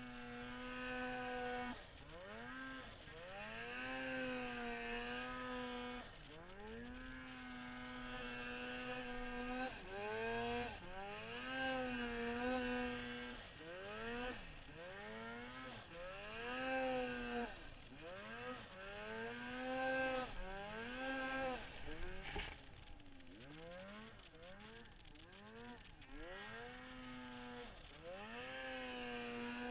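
Turbocharged two-stroke Polaris Dragon 800 snowmobile engine being ridden, its pitch dropping and climbing back again and again, every one to three seconds, as the throttle is let off and opened. A brief sharp click comes about two-thirds of the way through.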